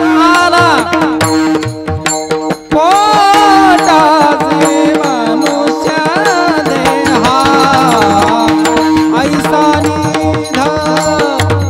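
Bhajan singing: a man sings long, sliding melismatic phrases over tabla and a steady drone.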